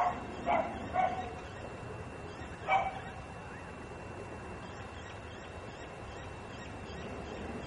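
A dog barking: a few short, sharp barks in the first three seconds, then only faint steady background noise.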